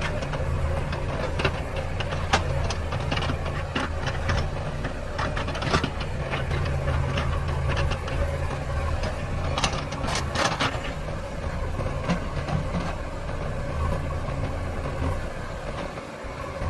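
Diesel engine of a JCB backhoe loader running steadily, with repeated metallic knocks and rattles from the working machine and a cluster of sharper clanks about ten seconds in. The engine note dips briefly near the end.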